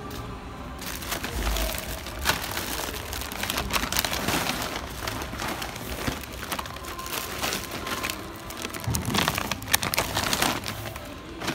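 Close rustling and crinkling of a fabric or bag rubbing against the phone's microphone. It starts about a second in and comes in irregular crackly surges, loudest twice.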